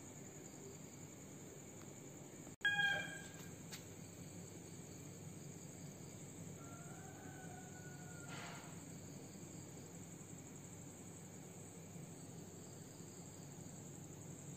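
Crickets chirring steadily. About two and a half seconds in comes one sudden, loud, short animal call that falls slightly in pitch, and a few seconds later a fainter, drawn-out call.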